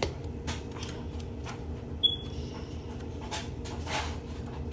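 Hands handling slime and small things on a table: scattered soft clicks and rubbing over a steady low hum, with one sharp click and a brief high squeak about two seconds in.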